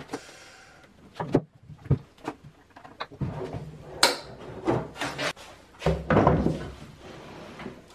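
Wooden drawers being handled: a drawer rolls out on metal ball-bearing drawer slides with clicks and knocks, and a sharp knock comes about four seconds in. About six seconds in there is a heavier wooden thump and rubbing as a plywood drawer box is set down on a table saw top.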